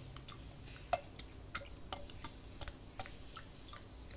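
Angostura bitters being dashed from the bottle's dasher top into a glass carafe of juice: a quick, irregular series of faint ticks and drips, roughly two to four a second, as each dash is shaken out and lands.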